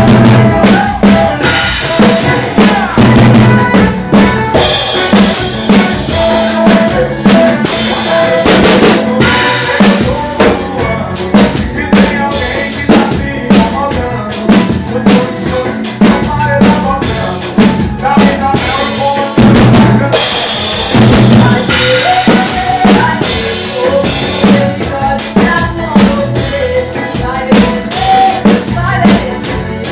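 Drum kit played live along with a song: bass drum, snare and rimshots keep a fast, steady beat over bass and keyboard.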